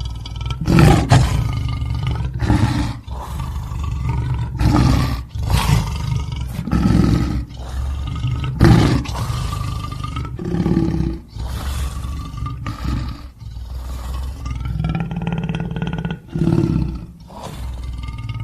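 Lions roaring: a string of deep roars and grunts, one after another, about one a second at first, then longer drawn-out calls.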